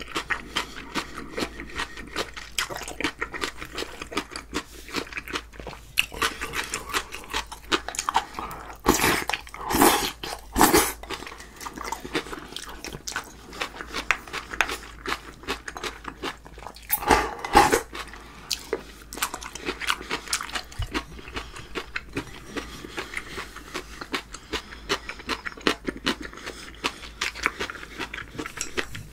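Close-miked eating: a man chewing and slurping, with a spoon and chopsticks clicking and scraping against a glass bowl as he finishes the last of the sauce. There are louder stretches about nine to eleven seconds in and again near seventeen seconds.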